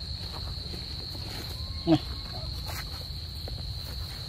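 Steady, high-pitched insect chorus, an even drone, over a low rumble with a few faint knocks. About two seconds in there is one brief, loud voice sound.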